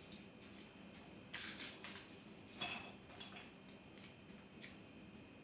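Faint handling sounds of a head of garlic being broken into unpeeled cloves: a few soft clicks and two brief papery rustles, about one and a half and two and a half seconds in.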